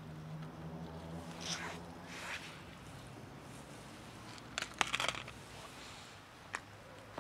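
Cats crunching dry kibble from a plastic tub: scattered crunches and rustles, with a cluster of sharp clicks about four and a half to five seconds in and one more near the end.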